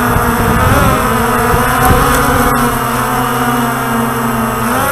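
Walkera Tali H500 hexacopter's six electric motors and propellers whining steadily, heard from the onboard camera. The pitch dips and rises briefly about a second in and again near the end as the motor speeds change, over a low rumble.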